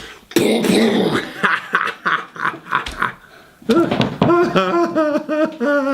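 A person's wordless vocal sounds: rough, breathy noises at first, then from a little past halfway a run of short pitched voiced bursts, about five a second, that fall in pitch near the end.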